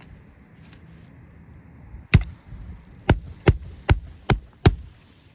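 Hammer blows on a shingle roof during a shingle repair: one sharp strike, then five more in an even run of about two and a half a second.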